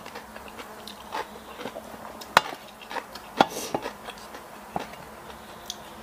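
Eating at a metal tray: a wooden spoon and fork tap and scrape on the tray while food is chewed, heard as a handful of scattered clicks, the sharpest about two seconds in.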